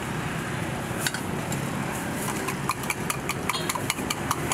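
Street-stall cooking noise: a steady low rumble with light metal clinks of a utensil against stainless steel cups, coming a few times a second in the second half.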